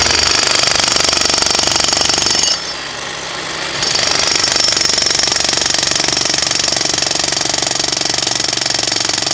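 Electric jackhammer hammering into a driveway, a rapid steady chatter of blows. It stops briefly about two and a half seconds in and starts again about a second later.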